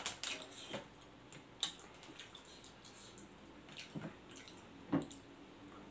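Faint eating sounds: a few separate wet mouth smacks and clicks while chewing instant noodles, with light taps of chopsticks on a plate. The sharpest come about a second and a half in and near the end.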